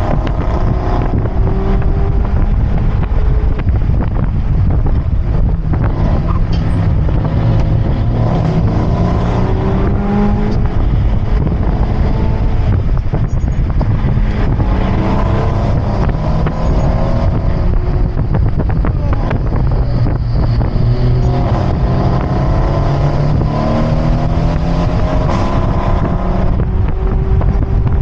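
Mazda MX-5's engine heard from on board while being driven, its pitch rising and falling again and again as it accelerates and shifts, with wind noise.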